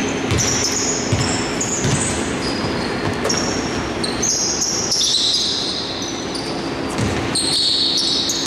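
Basketball being dribbled on a wooden indoor court, a string of irregular low thuds, mixed with short high squeaks of sneakers on the floor.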